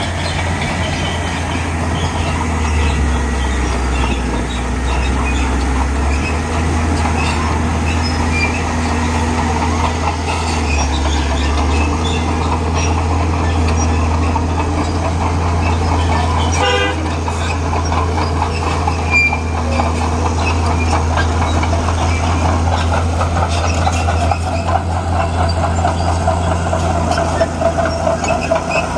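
Bulldozer's diesel engine running steadily, with clanking and squealing from its steel tracks; a fast rattle comes in near the end.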